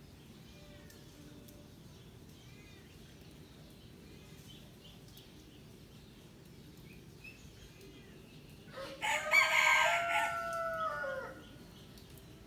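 A rooster crows once, about nine seconds in, a loud call of about two and a half seconds that drops in pitch at the end. Before it there are faint short chirping calls.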